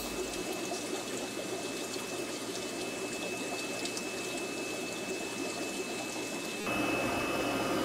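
Water pouring and splashing steadily into an aquarium from the central sump's return lines. Near the end it switches abruptly to a steadier mechanical hum.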